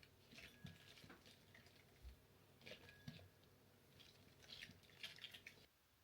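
Faint, scattered small clicks and soft rustles of quiet handling in a small room, stopping shortly before the end.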